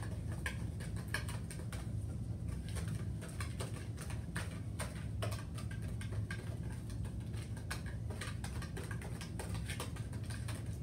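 Wire whisk stirring dry cornbread mix (cornmeal, flour, sugar) in a large mixing bowl, with rapid, irregular clicks and scrapes of the wires against the bowl. A steady low hum runs underneath.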